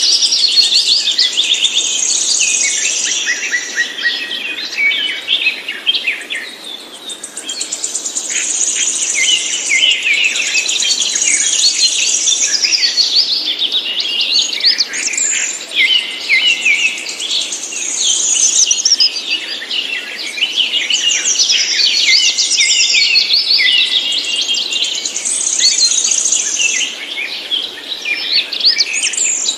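Songbird singing continuously: fast, high chirps and trills one after another, easing off briefly about six seconds in.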